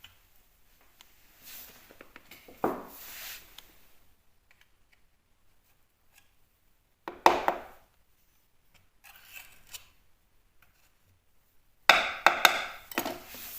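Hand tools working plasterboard and filler: several short bursts of scraping and knocking with pauses between them, the loudest near the end.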